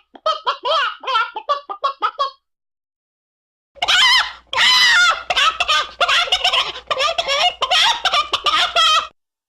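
Chicken clucking in quick, repeated, pitched calls that cut off about two seconds in. After a gap of silence, a louder, denser run of squawking calls starts about four seconds in and stops abruptly near the end.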